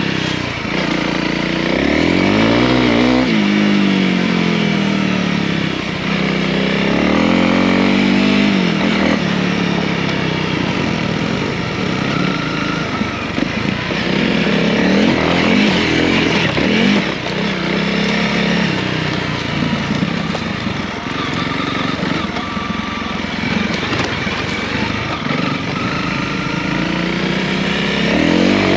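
Honda CRF300L's single-cylinder four-stroke engine running under way off-road, its pitch climbing and falling again several times as the rider accelerates and changes gear.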